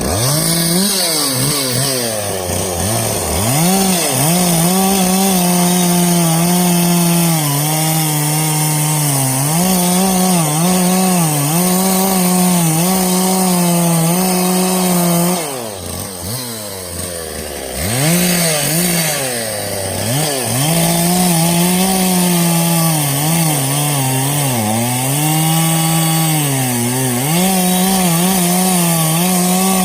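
Stihl two-stroke chainsaw cutting oak at full throttle, its pitch dipping again and again as the chain bogs down in the wood. About halfway through it drops off toward idle for a couple of seconds, then revs back up and carries on cutting.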